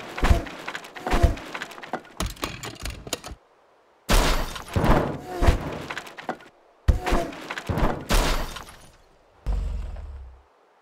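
Crash sound effects: a string of sharp crashing, breaking and thudding impacts in several bursts with short pauses between, ending in a low rumble. It is the sound of a car tumbling over and landing on its roof.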